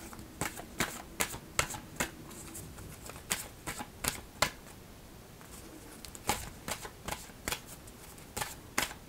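A deck of oracle cards shuffled in the hands: short runs of crisp card flicks and snaps, with brief pauses between the runs.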